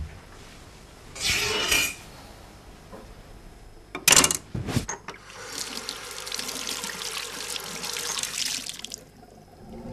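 A short rush of noise about a second in, then a metal kitchen knife clatters several times against the sink about four seconds in. After that a tap runs steadily into the sink for about four seconds before shutting off.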